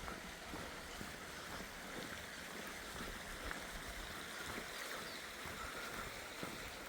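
Steady rush of running water from a small mountain waterfall.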